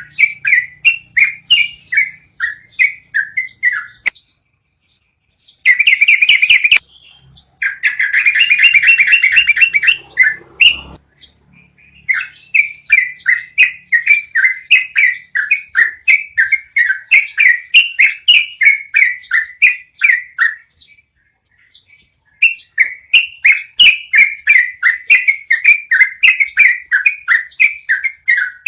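Yellow-vented bulbul (trucukan) song in a long rolling run of quick repeated notes, about four to five a second. The run breaks twice into a denser continuous trill, briefly around six seconds and again for about three seconds after that, with a couple of short pauses between runs.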